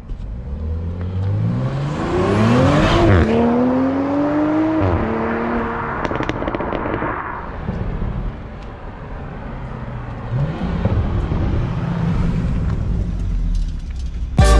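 Toyota GR Supra (MKV) fitted with an AWE carbon cold-air intake, accelerating hard with the engine pitch climbing. It upshifts about 3 s in and again about 5 s in, with the intake loud under load. The sound then fades, and the car comes back near the end at low revs.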